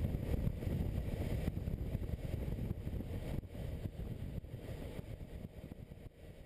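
Wind buffeting a motorcycle-mounted camera's microphone over the muffled running of a BMW K1600GTL's inline-six engine and its road noise, a steady rumble that fades away over the last couple of seconds.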